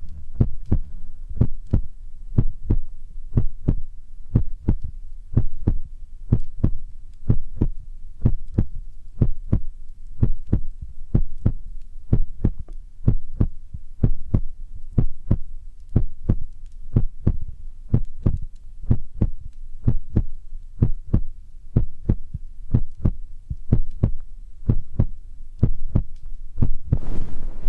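Steady, soft low thumps at about two a second, in a heartbeat-like rhythm, as an ASMR trigger sound; a rustling hiss comes in near the end.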